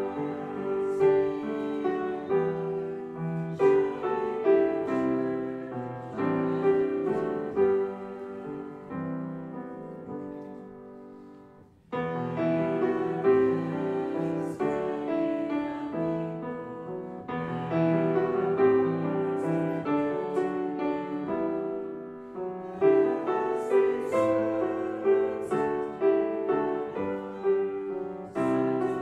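Piano playing a hymn in full chords. A held chord dies away just before twelve seconds in, and the playing starts again abruptly.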